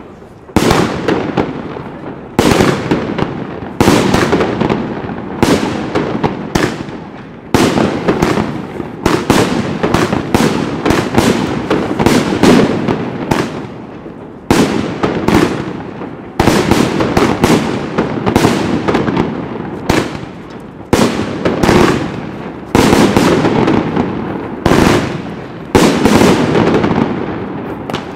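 Aerial fireworks being fired one after another, exploding overhead in a long series of loud bangs about one a second, each followed by a rolling echo.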